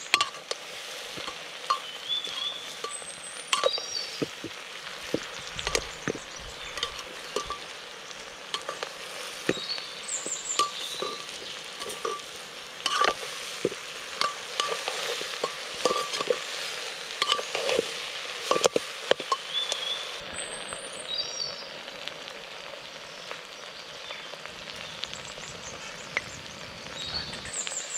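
Food sizzling as it fries in a pot, with a spoon repeatedly scraping and knocking against the pot as it is stirred.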